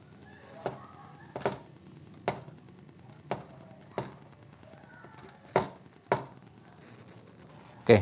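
Irregular sharp knocks and clunks from a CRT TV's main circuit board being shaken and jostled in its chassis, about eight in all, with the loudest near the end. The shaking is a test for a loose solder joint.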